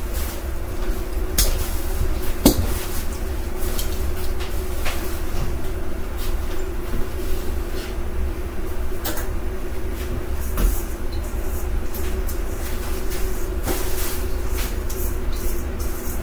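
Irregular clicks and knocks of kitchen containers and utensils being handled, over a steady low hum.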